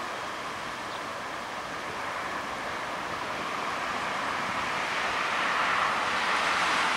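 Distant LDE GM diesel-electric locomotive approaching with a passenger train: a steady, even noise that slowly grows louder and is loudest near the end.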